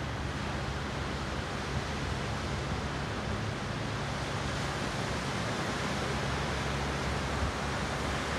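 Steady wash of surf breaking on a sandy beach, an even hiss with a faint low hum underneath.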